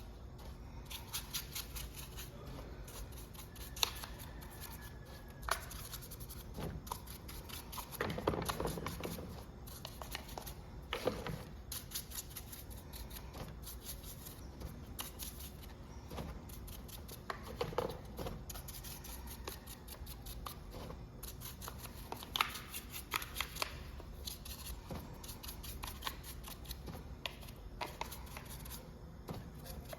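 Light handling sounds of small tools and parts: scattered clicks and taps with brief rustling, a little louder about a third of the way in and again past halfway.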